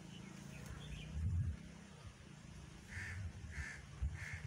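A crow cawing repeatedly, starting about three seconds in, roughly one caw every two-thirds of a second. Low rumbles sound on the microphone, the loudest a little over a second in.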